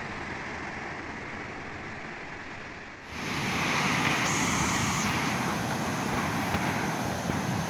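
Steady outdoor noise of wind buffeting the microphone, becoming louder and hissier about three seconds in.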